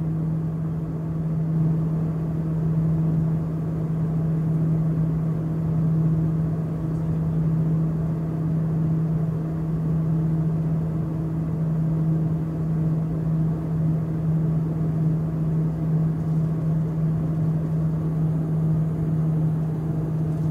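Cabin drone of a small twin-turboprop airliner climbing after take-off: a steady deep propeller hum over engine and rushing air noise, heard from inside the cabin.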